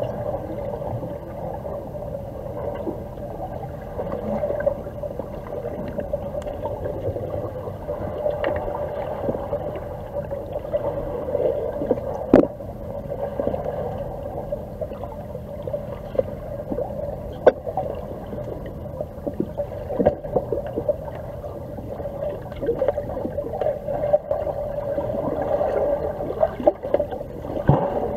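Muffled underwater pool ambience picked up by a submerged camera: a steady low hum with scattered sharp clicks and knocks, the loudest about 12 seconds in and another near 17 seconds.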